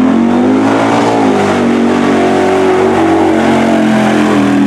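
Chevrolet pickup's engine revved hard and held at high rpm under load as the truck powers through a mud bog with its wheels spinning. The note wavers a little and dips briefly near the end.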